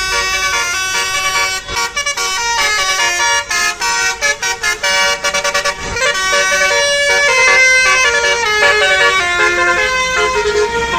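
Bus's Basuri telolet multi-tone musical air horn playing a melody of several notes at once. For the first half the notes keep cutting in and out in quick stutters, the horn 'coughing' as it starts, then it holds steadier notes from about halfway.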